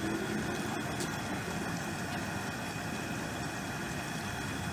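Propane turkey-fryer burner running under a pot of hot oil with a turkey frying in it, a steady low rumble.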